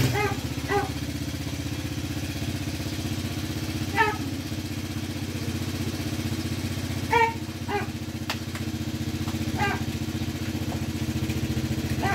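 Small ATV engine idling steadily after being ridden. A dog barks a few times over it, with single short barks about 4 s and 10 s in and a quick pair about 7 s in.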